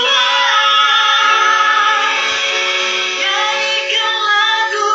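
A man singing live into a microphone in a high voice that sounds like a woman's, over an instrumental backing track.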